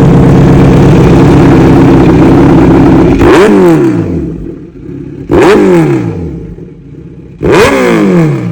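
Superbike engine with an Arrow full-system exhaust and titanium headers, revved from standstill: it holds high revs for about three seconds, then the throttle is released and the revs fall away. Two quick throttle blips follow, each jumping up and dropping back.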